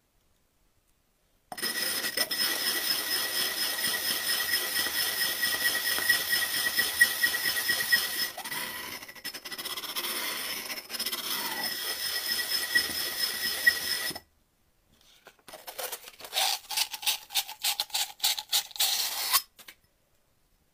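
The cut rim of a glass jar ground on wet sandpaper to smooth its sharp edge: about twelve seconds of steady gritty grinding with a high whine running through it. After a second's pause comes a quicker run of short scraping strokes.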